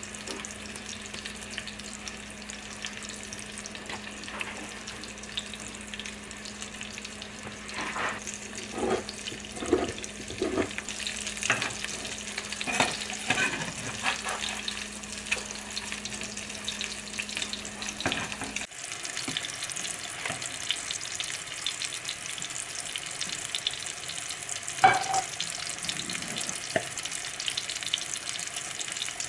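Ground-meat patties sizzling in hot oil in a frying pan. Spatula knocks and scrapes against the pan come between about a third and halfway through, as the patties are turned, and one sharp knock comes near the end.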